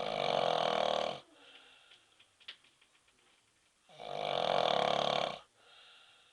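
A man snoring loudly: two long rasping snores about four seconds apart, the first right at the start and the second just past the middle.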